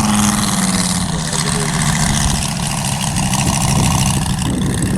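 Radio-controlled model airplane engine and propeller running steadily; its pitch drops slightly about a second in as the engine is throttled back, with a steady hiss of wind and propeller noise over it.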